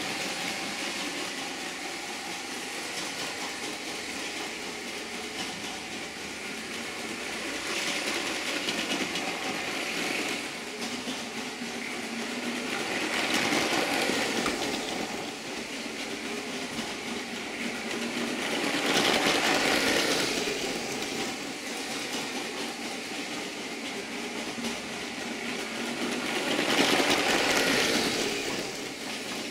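Lego 9V train motor whirring and the train's wheels rattling along the track as it circles. It gets louder each time it passes close by, four times.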